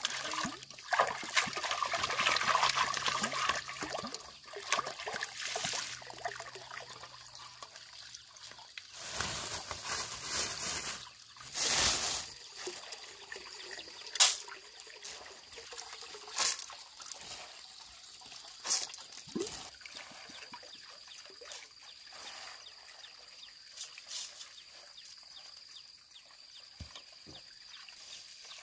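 Water splashing and trickling as hands rinse in a pot of water for the first several seconds. It then goes quieter, with a few sharp clicks and knocks as rice is scooped from a plastic bag, and a thin trickle of water running into the pot near the end.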